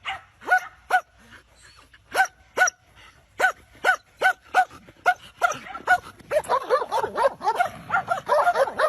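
A dog barking over and over in short, high barks, about one or two a second, coming faster and running together in the last few seconds.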